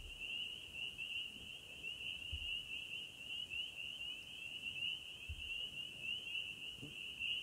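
Crickets trilling in an unbroken, high, finely pulsing chorus.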